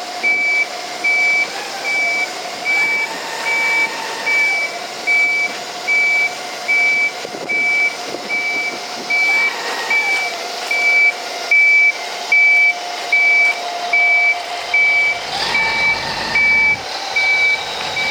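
Heavy vehicle's reversing alarm beeping steadily, about once a second, over a steady engine hum that rises in pitch briefly three times.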